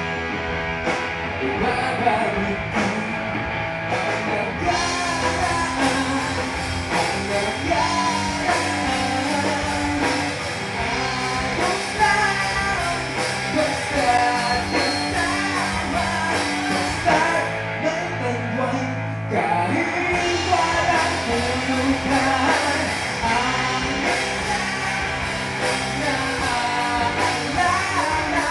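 Live rock band playing: a lead singer over electric guitar and drums. The cymbals and high end drop away for a short break about two-thirds of the way through, then the full band comes back in.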